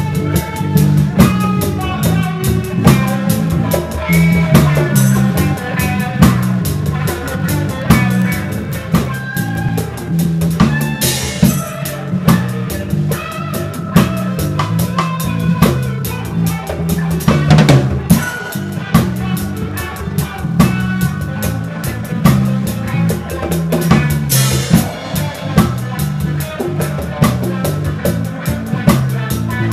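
Reggae band playing live, heard from right at the drum kit: the drums are loud and close, over a bass line that steps between notes.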